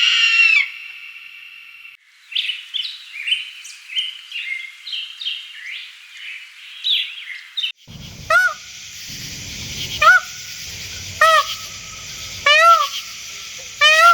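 Bird calls in separate clips: rapid, varied chirping from about two seconds in, then a different bird giving a squawk repeated roughly every second and a half.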